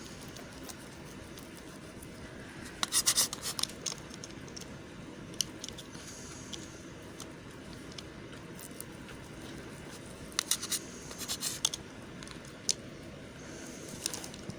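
Soft soap being worked, giving crisp crackling scrapes in two short clusters, one a few seconds in and one near the end, with a few single ticks between over a faint steady hiss.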